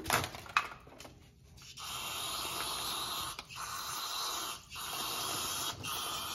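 Aerosol solvent cleaner sprayed through a straw into a carburetor body: a steady hiss in four long bursts with brief breaks between them, starting about two seconds in.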